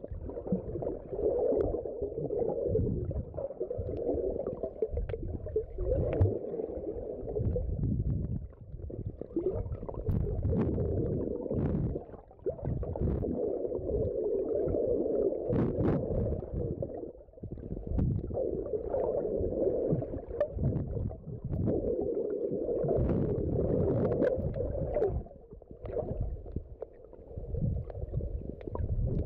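Muffled underwater sound picked up by a phone filming beneath the sea surface: a low, rumbling gurgle of moving water that swells and drops every few seconds, with scattered small clicks.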